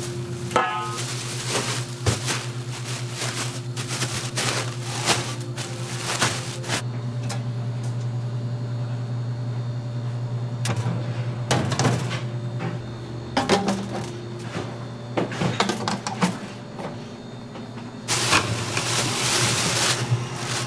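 Rice-cake flour being handled: a plastic bowl scooping powder into a rustling plastic bag with scrapes and knocks, a quieter stretch, then a louder rustle near the end as a bag of rice flour is shaken out onto a sieve. A steady low hum runs underneath.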